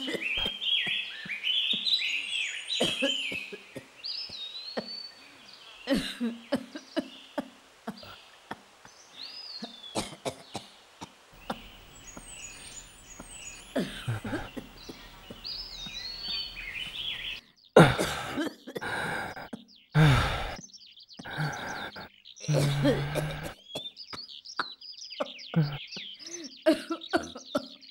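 Birds chirping and calling again and again in short rising and falling notes, with scattered clicks and a few loud short sounds about two-thirds of the way in.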